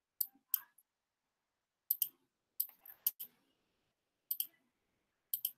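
Computer mouse clicking: a dozen or so sharp clicks at irregular intervals, many in quick pairs.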